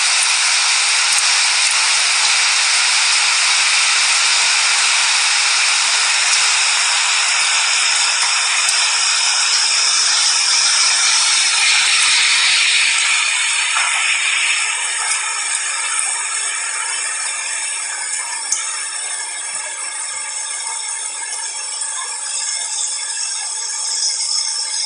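Steady hiss of heavy rainfall. About halfway through, the low rumble underneath drops away and the rain carries on a little quieter and thinner, with a single sharp click near the end.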